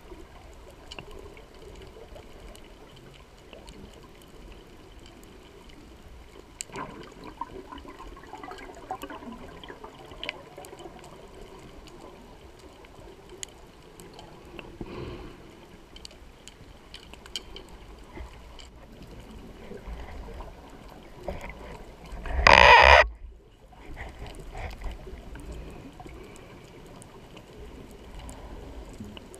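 Underwater bubbling and gurgling from a diver's exhaled air bubbles, heard through the camera's underwater housing. Fainter swells of bubbling come at intervals, and one short, loud rush of bubbles comes about three quarters of the way through.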